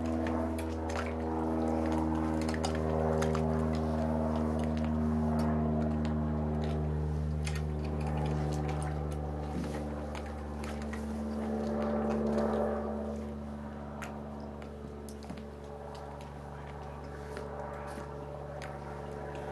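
Background music of sustained, slowly shifting chords over a steady low hum, with faint clicks scattered through it.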